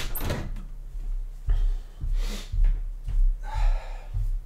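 A man sniffing and breathing hard through a runny nose: several short noisy sniffs spread across the few seconds, with a few low bumps of movement close to the microphone.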